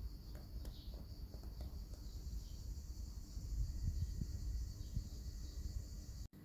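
Quiet background with a steady high-pitched hiss and a low rumble from the phone being moved and handled, swelling a little past the middle, with a few faint clicks; it cuts off abruptly near the end.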